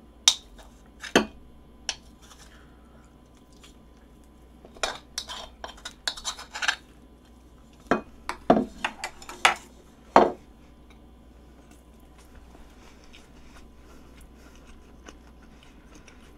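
A spoon clinking and scraping against a rice bowl as rice is scooped out. The sharp knocks come a few at a time in the first two seconds, then in a dense run between about five and ten seconds in.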